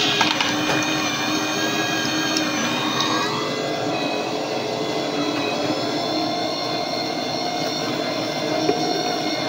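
JML electric juicer running steadily as it juices carrots, its motor giving an even hum and whine.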